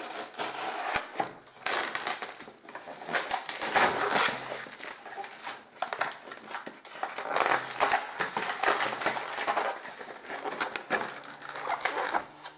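Styrofoam (expanded polystyrene) packaging block being pulled apart by hand, foam rubbing and crunching against foam in a dense, irregular run of creaks and crackles.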